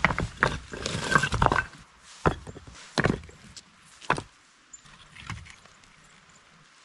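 Flat stones clacking and scraping against each other as they are set into a dry-stacked rock fire-pit wall: a quick run of knocks in the first two seconds, then single knocks about once a second, growing fainter.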